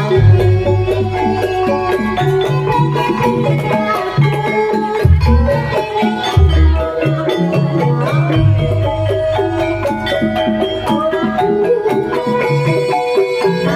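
Javanese gamelan in Banyumasan style playing the accompaniment for a kuda kepang trance dance. Metallophones strike interlocking pitched notes over deep beats that come and go in the bass.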